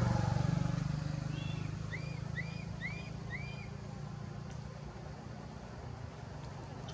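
Low engine rumble of a passing motor vehicle, fading away over the first second or two. Near the middle comes a short series of high chirps, the last four rising and falling, about two a second.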